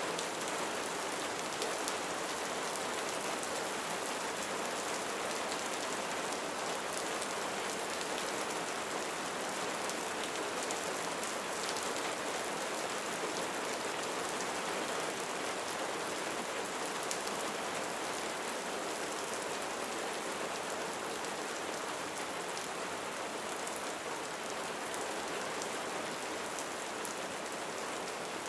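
Steady rain falling on a roof: an even hiss of rainfall sprinkled with the small ticks of single drops, unchanging throughout.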